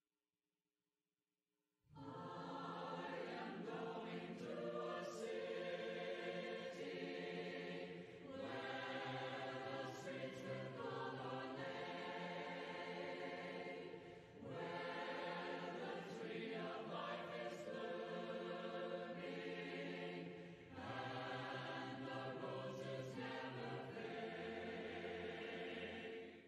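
Choir singing a hymn a cappella, without instruments, in four sustained phrases with short breaks between them. It begins about two seconds in and ends just before the close.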